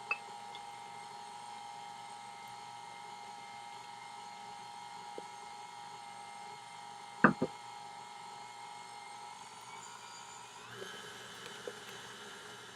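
KitchenAid stand mixer's motor running steadily with its flat beater turning through creamed butter and sugar, a steady whine with overtones. There is a sharp knock at the start and a louder double knock about seven seconds in. Near the end the whine shifts up in pitch.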